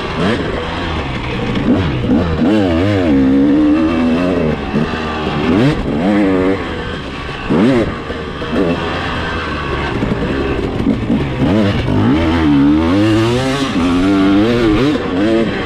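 Dirt bike engine revving up and down as it is ridden around a motocross track, its pitch climbing and dropping again every second or two with the throttle and gear changes.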